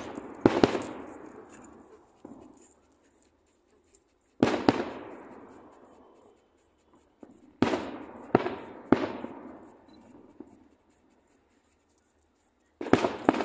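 Aerial firework shells bursting: sharp bangs, each dying away over a second or two. A pair comes just after the start, one about four and a half seconds in, three in quick succession around eight to nine seconds, and another pair near the end.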